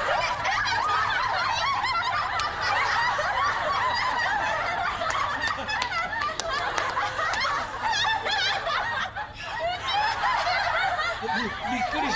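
Many people laughing together: audience laughter that goes on without a break and dips slightly about nine seconds in.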